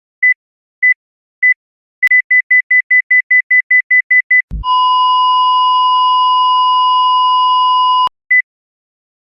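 Cardiac monitor sound effect: short high beeps about every 0.6 s, then a fast run of beeps at roughly six a second, a brief low thump, and a continuous flatline tone of about three and a half seconds that cuts off suddenly, after which slow single beeps resume.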